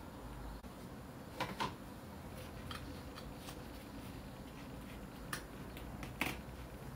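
A few sharp, light clicks of handling, a double click about a second and a half in and two more near the end, over a faint steady hum, as the stainless steel screw-down case back of a Tissot PRC 100 watch is unscrewed and taken off.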